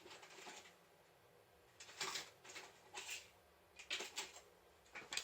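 A handful of short, light clicks and knocks, scattered irregularly through the second half after a quiet start.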